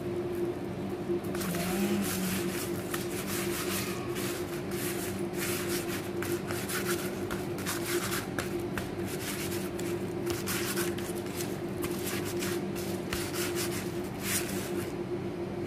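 A hand rubbing spice paste into raw whole fish in a metal tray: quick wet rubbing and scraping strokes that start about a second in and stop near the end, over a steady low hum.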